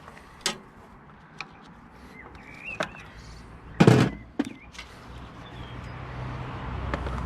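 Metal hand tools clinking in a workshop, with one loud metallic clunk about four seconds in; a low rumble builds toward the end.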